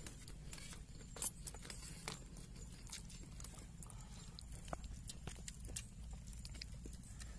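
Faint, scattered light clicks and taps at irregular moments over a low steady hum.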